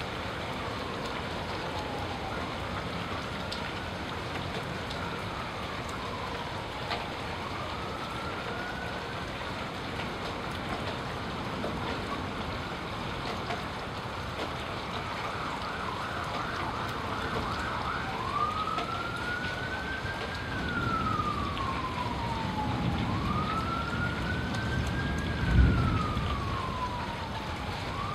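Emergency vehicle siren wailing, its pitch slowly rising and falling in cycles of a few seconds, switching briefly to a fast yelp about two-thirds of the way through, over steady rain. A low rumble builds near the end, with one sharp thump about 25 seconds in.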